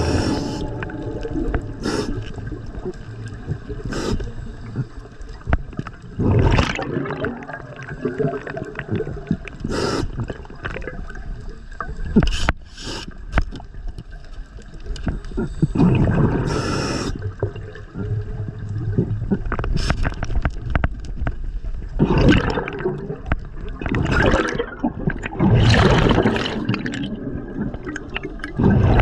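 Muffled underwater gurgling and bubbling picked up by an underwater camera, in repeated surges a few seconds apart.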